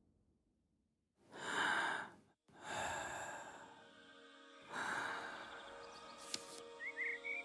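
Three long, breathy sighs, the first about a second in, each swelling and fading away. Near the end soft music tones enter and a few birds chirp briefly.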